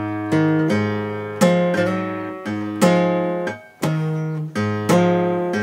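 Acoustic guitar playing a classic rock shuffle on the low strings, the chord shape rocking back and forth in a swung long-short rhythm with a little slide into the notes.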